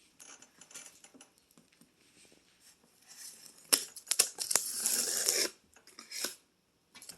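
Cardboard box being opened by hand: faint rustling and light clicks, then a few sharp clicks about four seconds in and a tearing scrape that lasts about a second.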